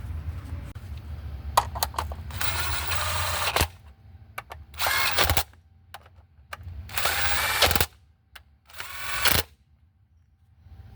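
A power driver with a 10 mm socket running ignition coil bolts down, in four short bursts of one to one and a half seconds, after a few sharp clicks.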